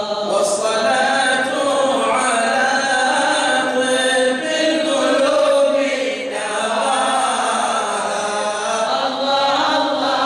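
Group of men's voices chanting together a devotional mawlid song in praise of the Prophet, the melody held in long sustained phrases with short breaks between lines.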